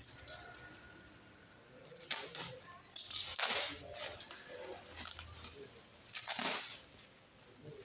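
Packaging being handled during unboxing: three bursts of rustling and scraping, the loudest about three seconds in.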